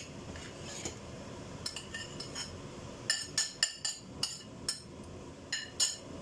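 Metal spoon clinking and scraping on a ceramic plate as pieces of fried fish are pushed off into a pan of sauce: a run of about a dozen quick, ringing clinks, most of them in the second half.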